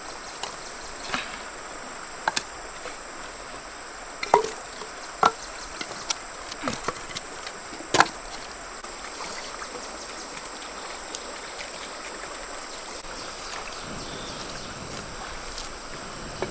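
A handful of sharp knocks and clicks, spaced irregularly over the first half, the loudest about eight seconds in, over a steady outdoor hiss with a thin high steady tone.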